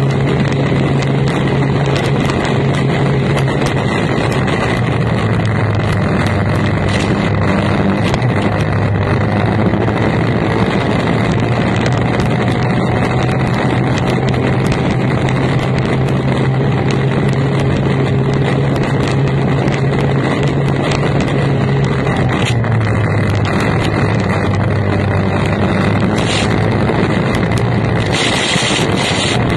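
Formula 1 tunnel boat's outboard racing engine running flat out, heard onboard over heavy wind and water rush. Its pitch steps down and back up a few times. Near the end the engine note dips and a burst of hissing spray washes over the boat.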